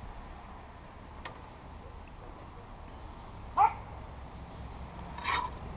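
Low steady background hum with one short animal call a little past halfway, the loudest sound here, and a brief second burst near the end.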